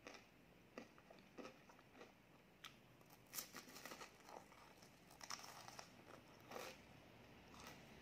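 Faint crisp crunches and chewing as a chocolate-coated ice cream cone is bitten into and eaten, a scattered series of cracks with the loudest about three and a half seconds in.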